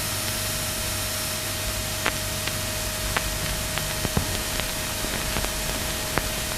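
Steady hiss with a faint steady hum and a dozen or so scattered light clicks, between two music tracks.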